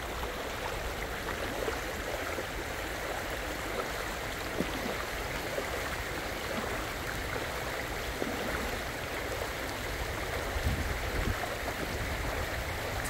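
Floodwater flowing steadily across a submerged road, a constant rushing wash.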